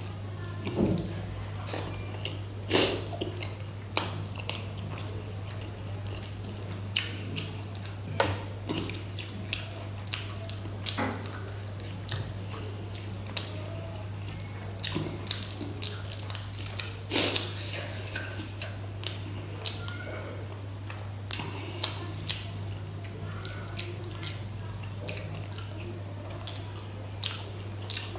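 Fingers squishing and mixing rice with kadhi on a steel plate: irregular wet clicks and squelches of eating by hand. A steady low hum runs underneath.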